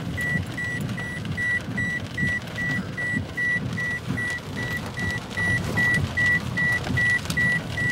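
A car's dashboard warning chime beeping steadily at a high pitch, about two and a half beeps a second, over the low rumble of the car.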